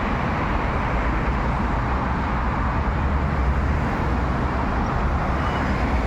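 Steady road traffic noise from a busy main road carrying buses and cars.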